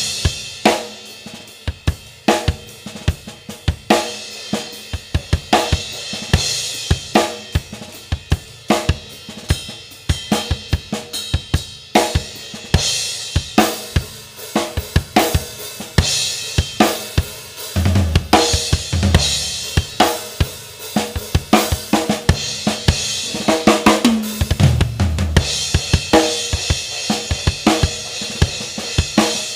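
Drum kit played in a steady beat, with a Chang DE series 16-inch medium crash cymbal of B20 bronze struck again and again and ringing out over the drums. Two low drum fills come in about midway and again later.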